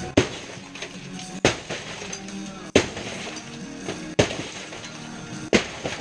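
Five heavy blows about every second and a half, smashing the broken remains of a television, with glass and plastic cracking on each strike. Background music plays underneath.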